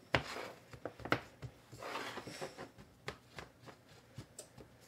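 Fingers pressing and smoothing graham cracker crumbs into a metal springform pan: soft gritty scraping and rustling, with a few light ticks.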